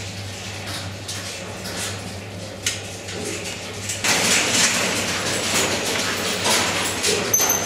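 Pig shed ambience: a steady low electrical or fan hum under a noisy hiss, with scattered light clicks and clanks from piglets in wire cages, and a short high squeak near the end. The noise steps up abruptly about four seconds in.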